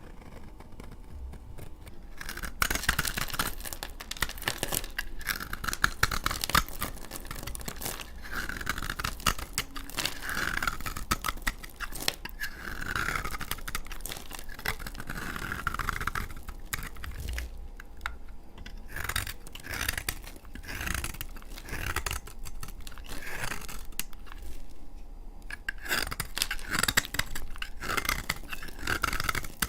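Blade cutting through dry laundry soap: dense crumbly crackling and scraping. It starts a couple of seconds in, with a couple of brief pauses between cuts.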